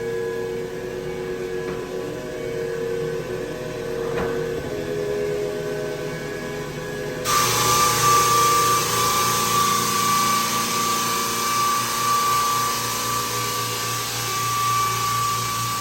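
Floor sanding machine running steadily on hardwood, a motor drone with a constant whine and a dust-extraction hiss. About seven seconds in the sound jumps abruptly louder and hissier.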